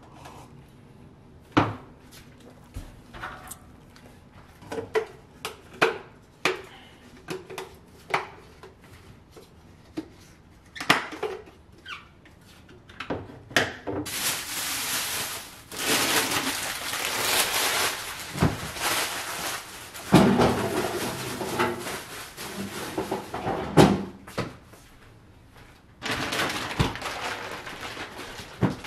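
Scattered knocks and clatter of kitchen items being handled and set down on a counter. From about halfway there are some ten seconds of loud, even hiss, then a shorter stretch of the same near the end.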